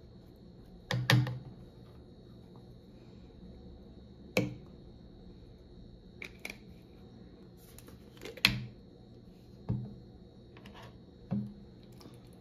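Plastic hair-dye bottles and a plastic mixing bowl being handled on a countertop: a handful of sharp clicks and knocks a second or more apart, the loudest about a second in and again about eight and a half seconds in.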